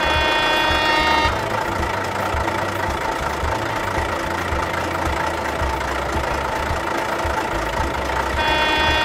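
Toy fire engine's engine sound effect: an idling rumble, with a steady pitched tone for about the first second that stops, then returns near the end.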